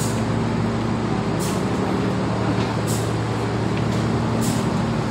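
Inclined moving walkway running: a steady low machine hum, with a short hiss about every one and a half seconds.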